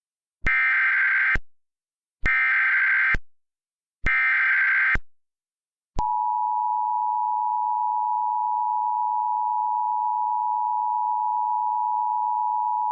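Emergency Alert System tornado warning tones in NOAA Weather Radio (BMH) style: three short bursts of SAME header data, each just under a second, then a long, steady attention tone that starts about six seconds in.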